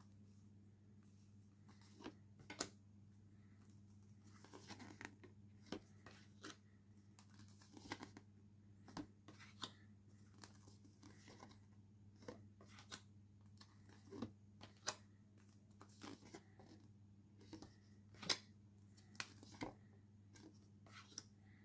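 Postcards being handled and leafed through: faint, irregular slides and taps of card against card, every second or so. A steady low hum runs underneath.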